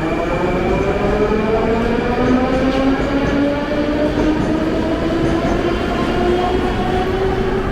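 Moscow Metro train pulling away, its traction motors whining with a pitch that rises steadily as it accelerates, over the continuous rumble of the wheels on the rails.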